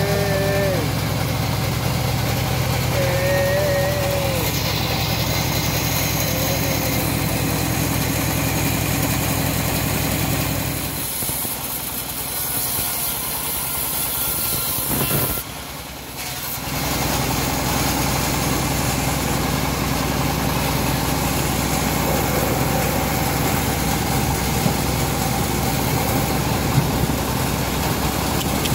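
Homemade bandsaw sawmill running steadily as teak logs are fed through its blade. The sound dips briefly about halfway through, then resumes unchanged.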